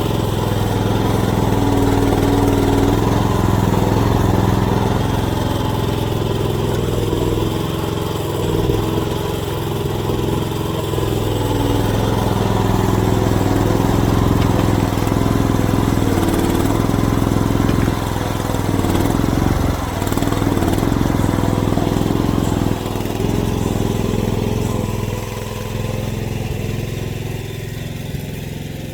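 AGT mini excavator's engine running steadily, its load and tone shifting now and then as the hydraulics work.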